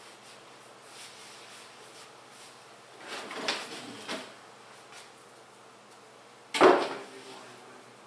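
Objects being handled: a short run of clattering and scraping about three seconds in, then a single loud knock about six and a half seconds in.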